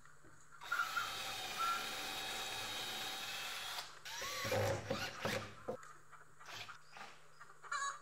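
Cordless drill running steadily for about three seconds as it bores a pilot hole into a wooden 2x2 brace, followed by a couple of seconds of shorter, uneven drill bursts with a squealing note.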